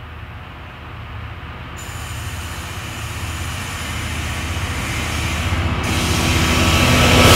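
Diesel locomotive and its train approaching under power, the engine and wheel noise growing steadily louder as it nears.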